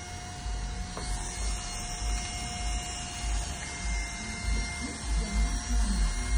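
Electric hair clippers running with a steady hum during a haircut.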